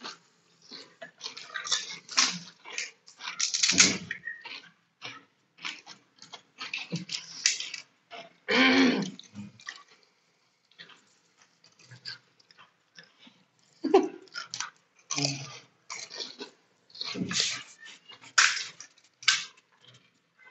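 Pani puri being eaten fast: crisp puri shells cracked open and crunched, with slurping of the spiced water and chewing, in many short irregular bursts.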